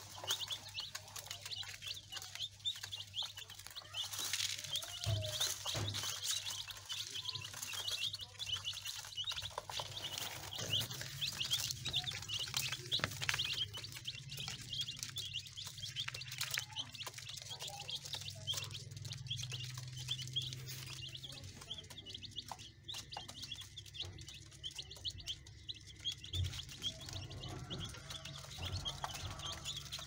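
A group of baby chicks peeping continuously, many short high cheeps overlapping, over a steady low hum.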